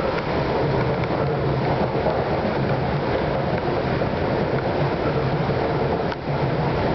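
Moving walkway running: a steady mechanical rumble with a low hum, dipping briefly about six seconds in.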